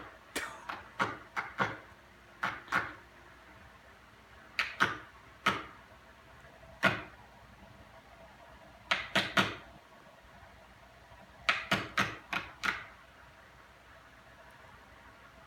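Sharp knocks, coming in irregular clusters of one to five every couple of seconds.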